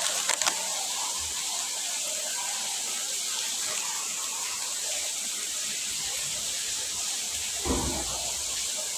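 Steady rush of flowing water, an even hiss with no let-up, with a brief voice-like call about three-quarters of the way in.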